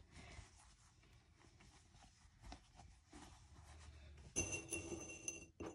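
Faint rustling of flannel fabric as two circles are handled and pinned together by hand. Near the end comes a louder stretch of rustling, about a second long, with a faint steady high tone under it.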